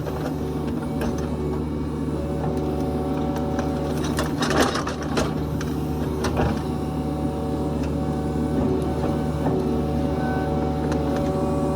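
Kubota KX71-3 mini excavator's diesel engine running steadily. A few sharp clanks and knocks come about four to five seconds in and again a little after six seconds.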